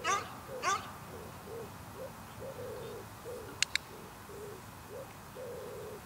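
Border collie vocalizing in excitement: two high squeals sliding down in pitch at the start, then a string of short, low hooting whines about twice a second. A sharp double click sounds once about halfway through.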